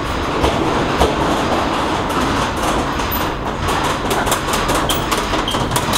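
Loud steady engine roar on an airport apron, a rushing noise over a low rumble, with scattered light clicks.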